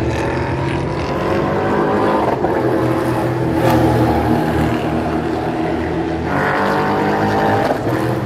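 EuroNASCAR stock cars' V8 engines running at speed on the circuit, a steady racing engine drone; about six seconds in, one engine's pitch rises as it accelerates.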